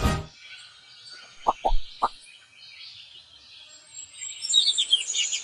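Songbird chirping and twittering, strongest near the end. About one and a half seconds in come three quick, sharp pops.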